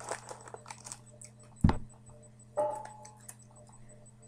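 Scattered light clicks and taps of handling close to a computer's microphone, with one heavy thump about a second and a half in and a brief pitched sound soon after.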